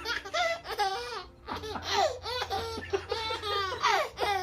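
A baby's belly laughter, a rapid run of high-pitched laughs and squeals, set off by his father's hiccups.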